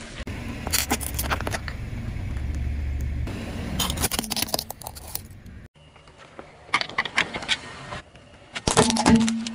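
A car tyre rolling slowly over objects and crushing them, with a low vehicle rumble. There are about four short bursts of crinkling and cracking as things give way under the tyre, the first likely a foil balloon crumpling.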